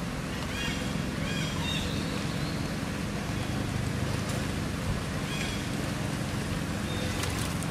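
Steady low outdoor background rumble, with a few faint short high chirps now and then.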